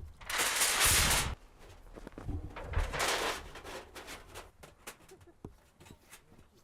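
Snow being scooped and thrown against the base of a tipi: two loud rushing scrapes with dull thuds, the first lasting about a second, the second about three seconds in. Faint scattered crunches and ticks follow.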